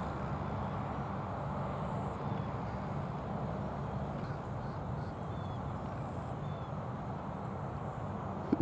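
Outdoor pasture ambience: a steady low hum under a thin, steady high-pitched whine, with a few faint short bird chirps. A sharp knock near the end.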